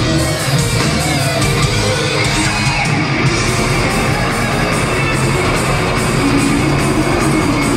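Live heavy metal band playing at full volume: distorted electric guitars over drums, heard from the audience.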